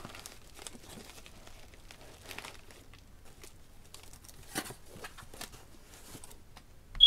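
Blu-ray cases and box packaging being handled: scattered rustling, crinkling and light clicks. It ends in one short, loud, high-pitched beep.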